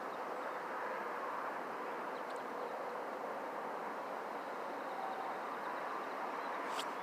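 Steady outdoor background noise at an even level, with one sharp click near the end.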